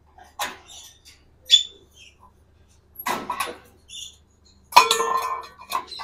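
A few short rattles and clatters of an African grey parrot's wire cage and its feeding cups being handled. The loudest noise, near the end, carries a short pitched squawk from the parrots.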